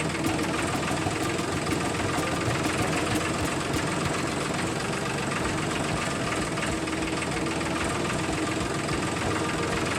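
Small motor of a home-built miniature tractor rig running steadily with a fast, even clatter.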